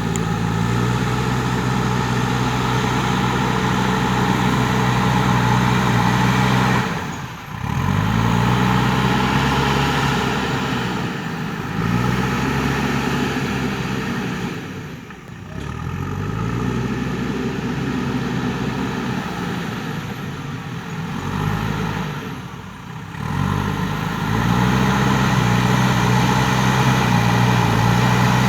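JCB 3DX backhoe loader's diesel engine running steadily at working revs. Its pitch drops three times and climbs back up each time.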